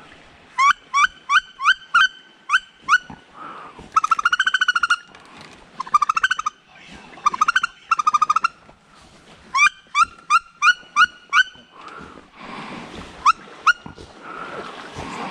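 Duck calls. A run of short, high, rising squeals, about three or four a second, comes back twice. Between the runs are buzzy, rattling notes of about half a second to a second each.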